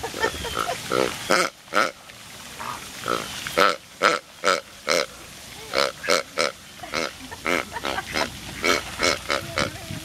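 A flock of flamingos calling at close range: short honking calls, several a second, coming in quick irregular succession and sometimes overlapping.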